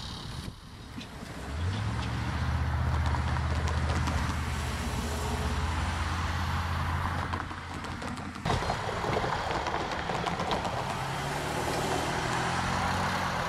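Diesel freight locomotives approaching at the head of a tank-car train. A steady low engine drone starts about two seconds in, then after a sudden break it gives way to a broader rumble of the train with the engines fainter underneath.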